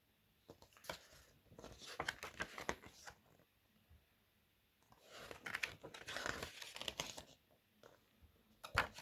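Paper booklets and leaflets being handled and leafed through: two spells of rustling and crinkling, then one sharp tap just before the end.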